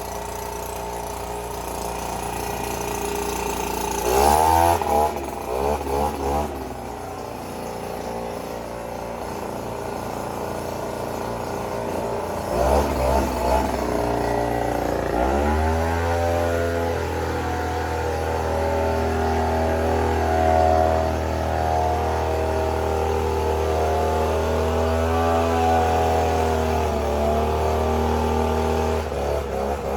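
Small gasoline engine running, revving up and down twice, about 4 s in and again around 13 s, then settling into steady running.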